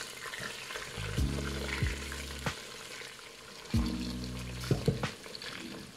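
Oil sizzling as oxtail browns in an electric pressure cooker on its sauté setting, with a silicone spatula knocking and scraping against the inner pot several times. Background music with low notes comes and goes twice.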